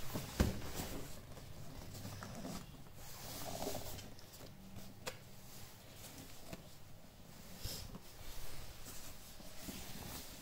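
A cardboard shipping box being handled and turned over, with scattered knocks and scrapes of the cardboard against the desk and a sharp knock about half a second in.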